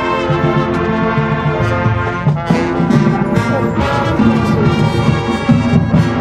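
Marching band playing loud, sustained brass chords, with percussion strokes a little past the middle.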